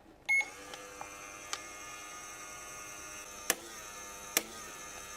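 Toy microwave oven switched on with a short beep, then running with a steady electronic hum, broken by a few sharp clicks.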